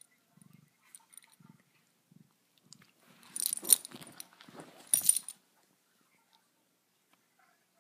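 Two bursts of scuffling and handling noise as the cat scrambles off the hand, with the metal tag on its collar clinking, about three and five seconds in. Before them, faint soft low pulses.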